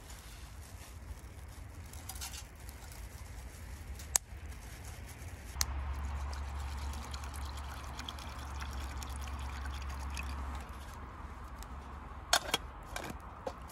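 Water poured from a bottle into an aluminium mess tin of rice, a steady trickle lasting about five seconds as the rice is readied for cooking. A few sharp clicks follow near the end.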